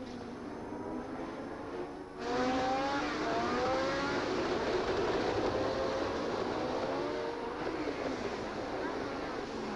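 Formula One racing engines at full race revs as cars go by close to the track. It is quieter at first; then, about two seconds in, a car arrives loud, its engine note climbing as it accelerates, and more cars' engines follow on top of it.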